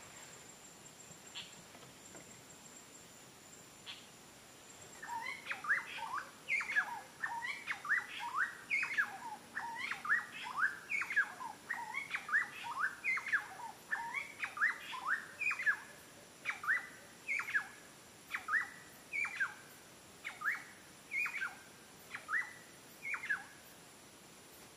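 A bird calling over and over in short, sharp notes, about two a second. The calls start about five seconds in and become more spaced out toward the end.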